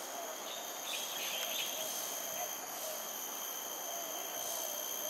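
Steady high-pitched insect trilling in several unchanging tones, with a few short chirps about a second in.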